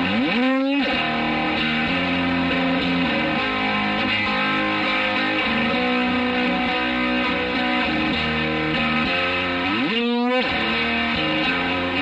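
Electric guitar chords played through an EHX Polyflange in filter-matrix mode, into a Fender Twin Reverb, giving a hollow, comb-filtered tone. A sweep runs through the sound about half a second in and again near the end.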